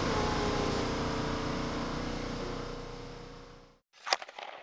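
Steady mechanical hum with a few steady tones in it, fading out to silence over the last second or so before stopping. About four seconds in comes a single sharp, short hit with a brief ringing tail, then a few fainter ticks.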